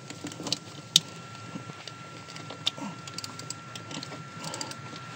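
Small wrench and socket clicking and tapping on metal while breaking loose the oil pressure sending unit from the engine block. There is one sharp click about a second in, then scattered lighter ticks.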